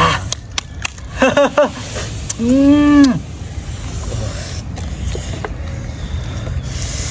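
Short wordless vocal exclamations from a man: a wavering cry about a second in, then one drawn-out rising-and-falling "ooh" near the three-second mark. After that a steady low outdoor hum with a few light clicks of chopsticks.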